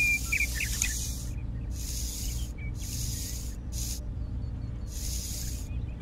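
Small trowel scraping and smoothing sand, a series of hissing strokes about one a second with short gaps between them, over a low steady hum.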